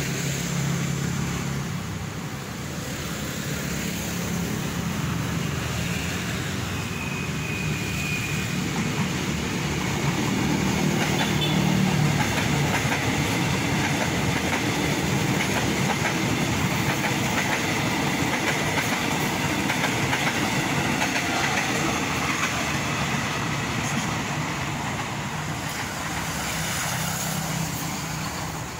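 KfW i9000 electric multiple unit (KRL commuter train) passing on the track, its wheels running on the rails. The sound swells to its loudest about twelve seconds in, then slowly fades as the train moves away.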